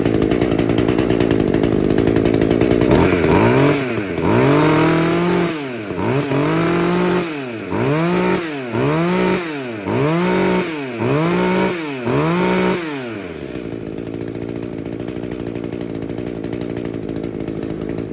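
Echo ECS-300T top-handle two-stroke chainsaw running at high revs, then revved up and down about ten times, roughly once a second. It then settles to a steady idle.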